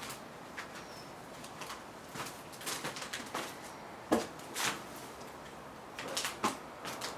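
Irregular clicks, knocks and scrapes at uneven intervals, louder in clusters around the middle and near the end, with a faint short bird chirp about a second in.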